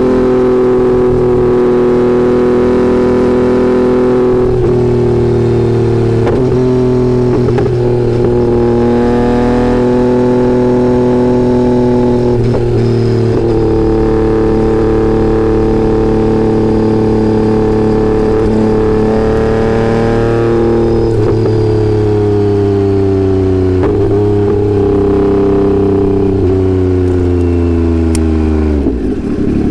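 2022 Yamaha XSR900's inline-three engine running through an unbaffled Kelpi full exhaust with a shorty can, holding steady road revs with a few brief dips in pitch. Near the end the revs fall steeply as the bike slows.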